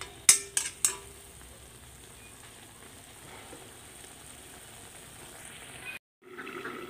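A metal spatula knocks three times against a steel kadai in the first second, then a soft steady sizzle of aubergine and potato pieces simmering in oil and a little added hot water. The sound cuts off about six seconds in.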